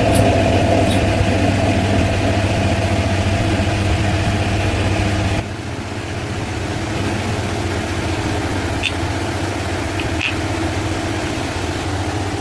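A workshop machine running steadily with a low, even hum. About five and a half seconds in it cuts abruptly to a slightly quieter, similar running sound, with a few faint clicks near the end.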